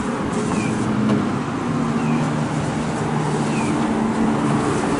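Road traffic: engines humming steadily under a constant hiss, with a short falling chirp repeating about every second and a half.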